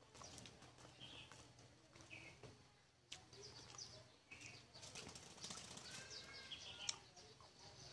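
Quiet eating sounds: fingers working rice on a plate, and chewing, with small clicks. Faint, scattered bird chirps come in the background, busiest in the second half.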